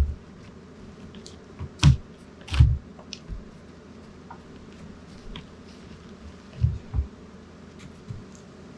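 Dull thumps and knocks of wooden framing lumber being handled, in two pairs about two seconds in and again near seven seconds, with faint sharp clicks between them.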